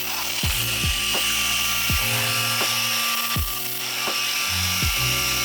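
Background music with repeated bass notes that drop in pitch, over the steady hiss and whine of a Redmond cordless stick vacuum cleaner running as it picks up scattered buckwheat.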